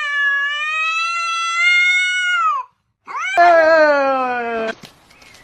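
A cat yowling: one long, drawn-out call that holds its pitch for a few seconds, then after a short break a second, lower yowl that slides down in pitch.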